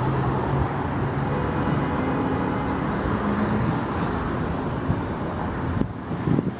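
Steady city traffic noise, a low engine hum running through it.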